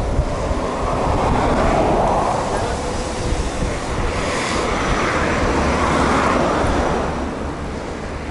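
Wind rushing over the microphone of a camera riding along on a bicycle, with a steady rush of road noise that swells twice.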